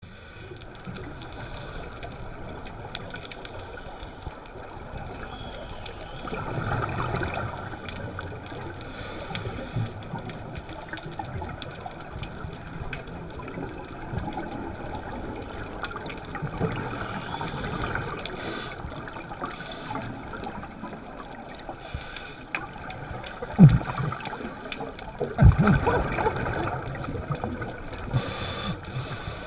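Scuba divers' exhaled regulator bubbles gurgling, heard through an underwater camera housing: a steady muffled underwater hiss with irregular swells of bubbling. Two dull knocks about two seconds apart come late on.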